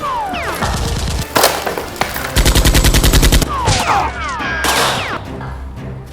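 Gunfire sound effects: a single shot, then a rapid burst of about ten shots a second lasting about a second, with falling whistling tones before and after.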